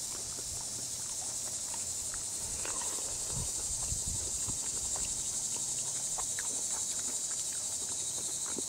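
A steady, high-pitched chorus of summer insects with a fine rapid pulse. There are scattered faint short chirps, and a few dull low thumps between about three and four and a half seconds in.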